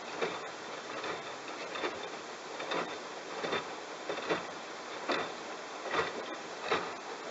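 Bosch washing machine drum tumbling a wet load of towels: a steady watery swish with a slosh from the load falling in the drum a little more than once a second.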